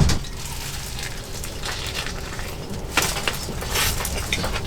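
A person chewing food close to the microphone, with soft crunching and a few sharper crackles about three seconds in, over a low steady rumble.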